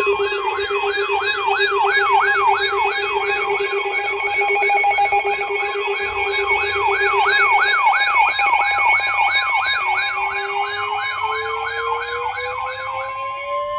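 Weather alert radio alarm for a severe thunderstorm warning: a loud, fast-warbling siren-like alarm, about three sweeps a second, over the steady NOAA warning alert tone near 1 kHz. A lower steady tone drops out a little past halfway, and a tone slowly rising in pitch comes in near the end.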